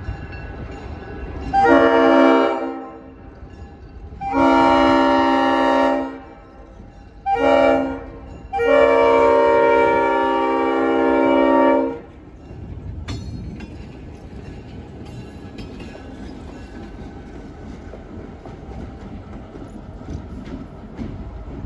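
Leslie RS5T five-chime horn on an EMD GP38 diesel locomotive sounding the grade-crossing signal: long, long, short, long, the last blast held about three seconds. After the horn stops, the locomotive's diesel engine and wheels rumble as the light engine rolls past and away.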